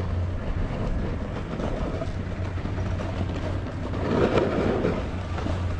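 Wind buffeting the microphone and skis sliding and scraping over packed snow on a downhill run, with a louder surge about four seconds in.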